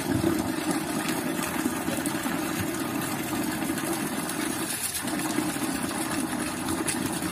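Water pump motor running steadily while water pours from a standpipe and splashes below.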